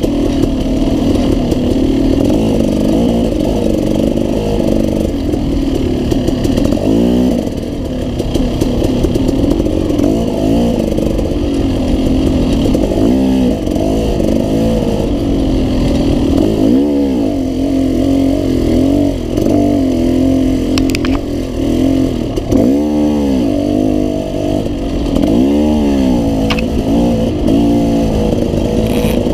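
Off-road motorcycle engine running hard throughout, its pitch rising and falling again and again as it revs up and drops back.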